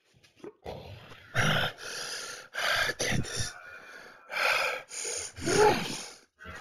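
Monster sound effects: a run of about seven loud, breathy hisses and snarls in quick succession, the last one carrying a growl that bends in pitch.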